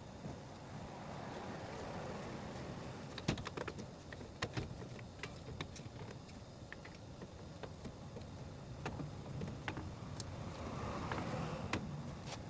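Scattered sharp clicks and clinks of tools and parts being handled as a car's engine radiator fan is fitted, over a steady low rumble.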